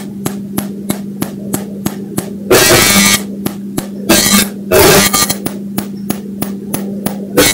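Amplified recording from a metal microphone pressed against the ear: a steady hum with sharp, evenly spaced clicks about five a second, which the recordist takes for 'electronic beats'. Louder bursts of rough rustling noise break in three times, each under a second long.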